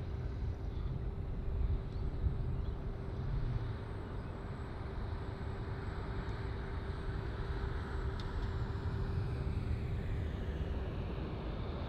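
Jet engines of a departing Airbus A380: a steady rumble with a constant hum and a faint high whine above it.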